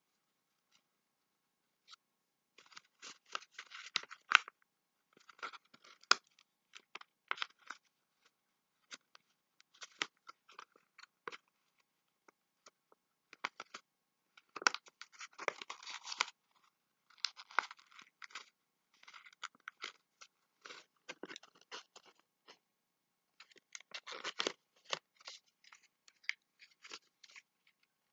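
Thin paper rustling and crackling as fingers fold and press creases into an origami box, coming in irregular spells with short pauses between.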